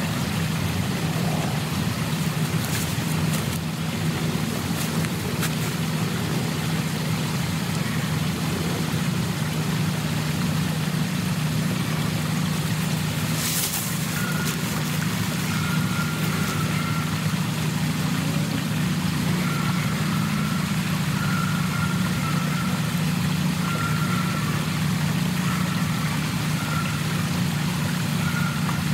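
A steady low mechanical hum, like an engine running. Faint high tones come and go over it in the second half.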